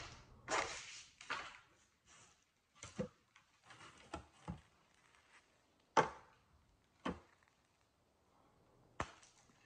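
Hard gingerbread panels being handled and set down on a tabletop: a rustle near the start, then about six sharp, separate knocks and taps, the loudest about six seconds in.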